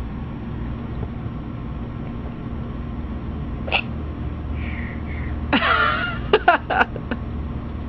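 A baby's short non-speech vocal sounds: a brief squeak a little before halfway, then a longer wavering squeal about two-thirds in, followed at once by a few quick sharp bursts. Under them runs a steady low hum.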